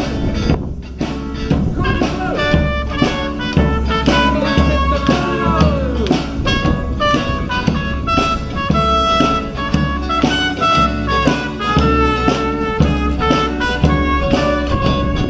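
A live band playing an instrumental passage of a song: a lead melody moving note by note over a steady bass and drum rhythm.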